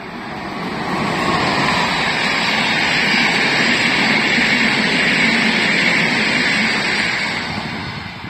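Electric passenger train passing through the station at speed: wheels rolling on the rails make a loud, steady rush. It grows over the first second or so and fades near the end as the train pulls away.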